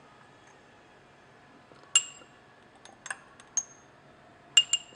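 Laboratory glassware clinking lightly a handful of times as more concentrated sulfuric acid is added to oxalic acid crystals: short ringing tinks, the first about two seconds in and a quick pair near the end.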